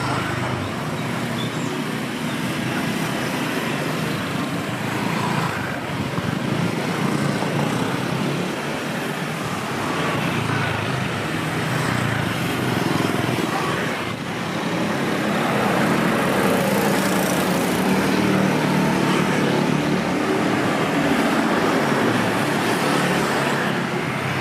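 Street traffic: engines of passing motor vehicles, steady and growing louder about two-thirds of the way through.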